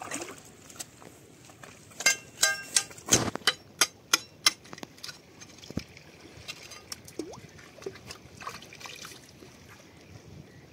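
A steel koyta blade chopping at rock oysters stuck to a shore rock, to break the shells open: about two seconds in, a quick run of about nine sharp strikes, the first few ringing, then fainter taps. Water trickles in the background throughout.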